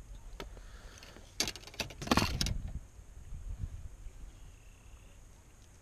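Handling noise from fishing gear in a small inflatable boat: a short run of clicks and rattles about a second and a half in, over a low rumble of movement on the mic.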